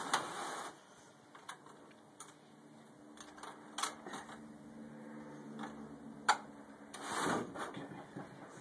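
Metal lid clamps of a concrete air-content pressure meter being latched down onto the bucket: a series of sharp metallic clicks and clacks, the sharpest about six seconds in.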